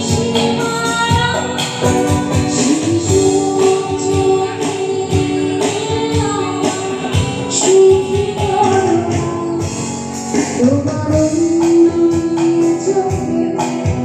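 Live band music: a woman singing long, gliding melody lines into a microphone over electric guitar, keyboard, bass and hand drums keeping a steady beat.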